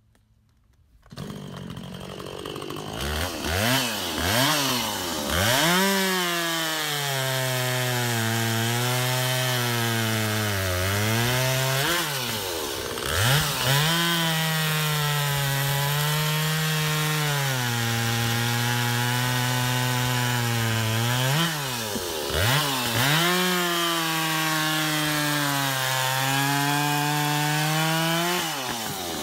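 Two-stroke gas chainsaw starting up about a second in and revving, then cutting through hard maple logs with a sharp chain. The engine note drops and holds steady under load through three long cuts, rising in brief revs between them.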